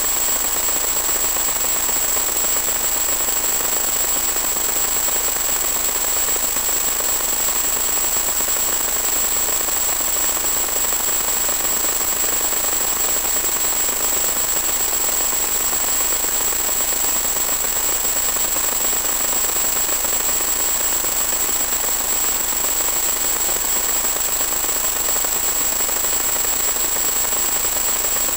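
Steady static hiss with a constant high-pitched whine, unchanging throughout: noise on the audio channel of an analog 1.2 GHz FPV video link rather than any sound from the plane, since it does not change when the motor is throttled off.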